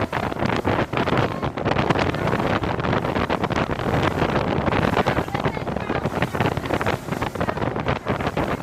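Wind buffeting a camera microphone on a moving motorboat, a loud fluttering rush over the boat's engine and hull noise.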